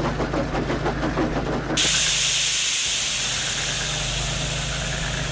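Steam locomotive sound effects: rhythmic chuffing over a steady low hum, then about two seconds in a sudden loud hiss of escaping steam that slowly dies away while the hum carries on.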